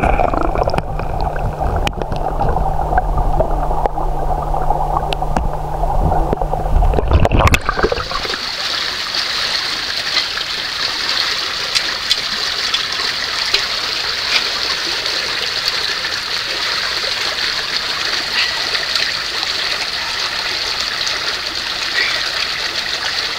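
A muffled underwater rumble with a faint steady low hum, cutting off about eight seconds in; after that, the steady rush of spring water flowing and gurgling out of the rocks.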